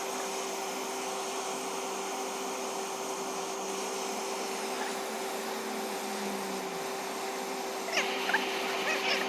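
Steady motor hum with a constant tone, with short squeaky chirps starting near the end.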